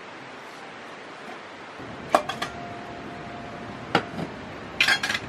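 Metal camping cookware being unpacked and set down: a sharp clink about two seconds in that rings on as a steady tone for over a second, then another knock and a short cluster of clinks near the end.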